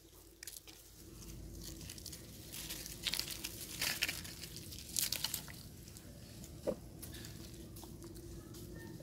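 Dry leaf litter crackling and rustling in a few short bursts about midway, as monkeys move over and handle the leaves, with one short squeak about two-thirds of the way through.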